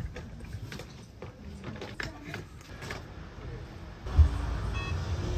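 Luggage being unloaded from a car's open boot: faint knocks and handling sounds, then a suitcase thumps down about four seconds in.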